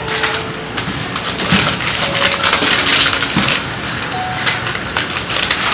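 Crinkling of a plastic snack packet being handled and crunching as the snack is eaten, a busy run of short crackly clicks and rustles.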